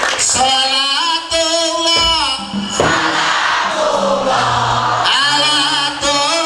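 A man singing into a hand microphone through a PA system, holding long notes with a slight waver, in phrases separated by short breaks.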